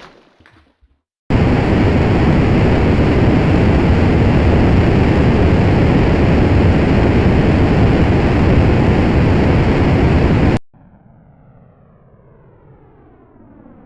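A loud, steady rushing noise, heaviest in the low range, starts suddenly a little over a second in and cuts off abruptly about three seconds before the end. A faint sweeping whoosh follows.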